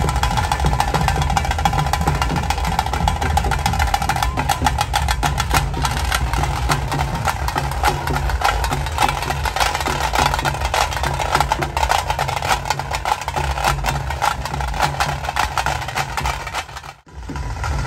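Tase drum troupe beating a fast, continuous rhythm with sticks, the drumming that accompanies the Pili Vesha tiger dance. It breaks off briefly near the end, then picks up again.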